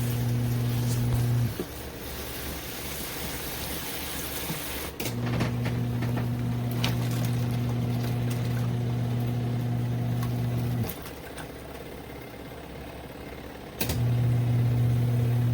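Wash motor of a twin-tub portable washing machine humming as the wash cycle runs in spells. It stops about a second and a half in, starts again about five seconds in, stops again near eleven seconds, and starts once more near the end. A low churning noise carries on between the spells.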